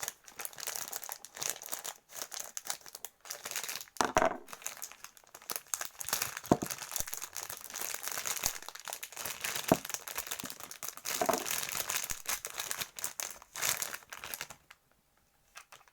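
Packaging crinkling and rustling as it is handled and unwrapped, with scattered sharp clicks; it stops about a second before the end.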